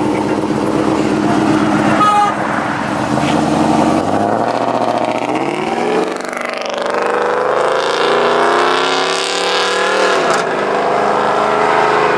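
Car engine accelerating, its pitch climbing, dropping back about six seconds in as at a gear change, then climbing again before easing off. The sound cuts off suddenly at the end.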